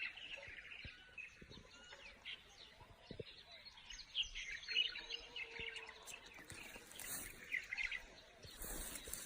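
Small birds chirping and twittering faintly in the background, with a few soft knocks and a brief rustle near the end.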